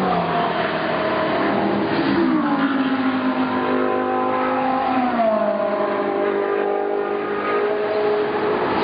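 Several GT race car engines running at once, their pitch dropping in steps near the start, about two seconds in and about five seconds in, as they shift down.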